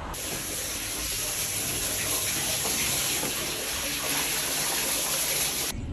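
Water running steadily in a bathtub, an even hiss that cuts off abruptly near the end.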